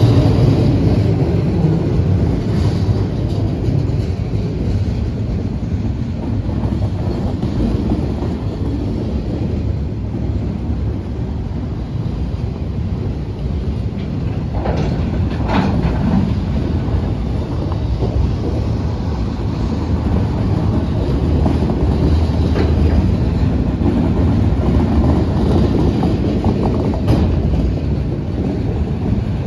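CSX mixed freight train rolling past, a steady loud rumble of the train on the rails, with a couple of brief squeals about fifteen seconds in.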